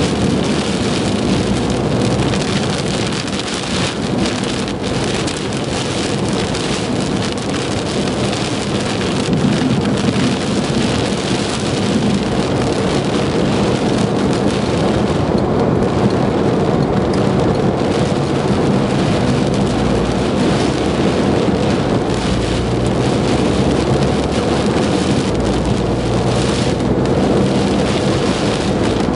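Heavy rain beating on a car's roof and windshield, heard from inside the moving car as a loud, steady, dense hiss.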